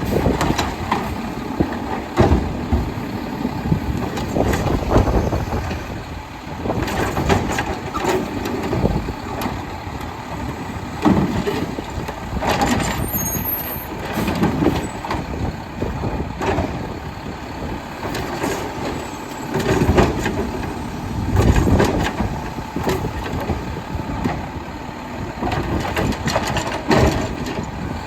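A Mack LEU garbage truck with a Labrie Automizer side-loader body working its route: the engine runs steadily under repeated sudden hisses and bangs, with air brakes releasing and the automated arm and body handling carts.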